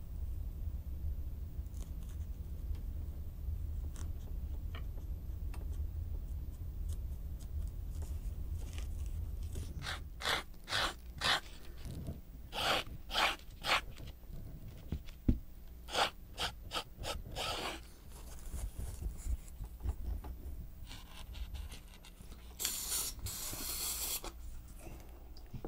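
Craft foam being handled and pressed on a work table: a low steady hum that stops about ten seconds in, then a string of short scraping, rustling strokes. Near the end comes a hiss of about two seconds from an aerosol can of spray adhesive.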